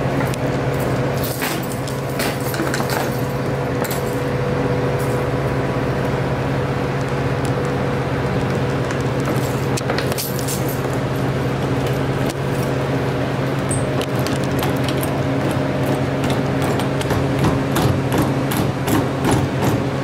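A bunch of keys jangling and clicking against the lock of a soda vending machine's door as it is unlocked, with sharp metal clicks that come thicker near the end. A steady low hum runs underneath.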